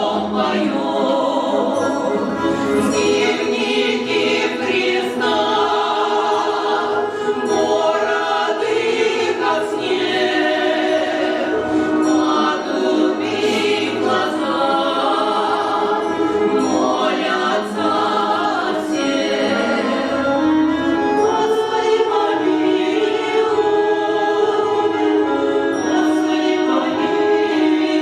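Choir singing a song with several voices together, steady and loud throughout.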